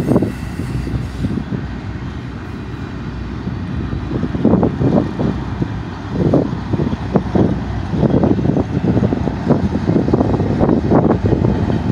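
Double-stack intermodal freight cars rolling past: a steady rumble of steel wheels on rail with irregular clanks and knocks from the cars, busier from about four seconds in.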